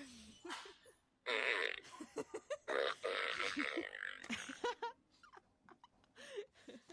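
Fart noises for a prank: a short one about a second in, then a longer, broken one lasting about two seconds.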